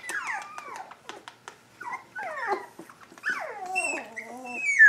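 Three-week-old Standard Schnauzer puppies whining and squealing: a string of short, high calls that slide down in pitch, one after another, the loudest near the end.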